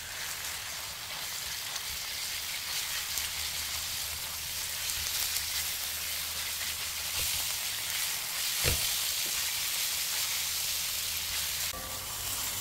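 Ground pork frying in oil with onion and garlic in a stainless steel pan: a steady sizzle while a spatula stirs and breaks up the meat, with one sharp knock about two-thirds of the way through.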